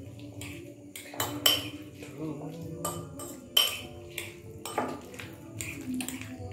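A metal fork stirring and beating a wet corned beef and egg filling in a bowl, scraping the sides and striking the rim in several sharp clinks.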